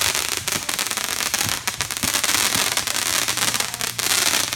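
Fireworks going off: a dense crackle of many rapid pops, with a few deeper bangs among them.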